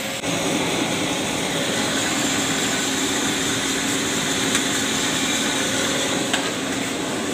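Small gas-fired drum coffee roaster running mid-roast: a steady whoosh of its blower and burner with a low, even hum.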